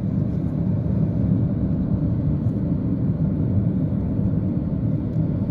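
Steady low rumble of a moving vehicle's engine and tyres on the road, heard from inside the cabin.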